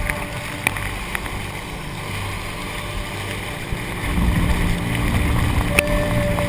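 Inflatable boat running fast through chop: spray and wind rushing over the camera housing, over the steady drone of its engine, which grows louder about four seconds in. A few sharp ticks of spray hitting the housing.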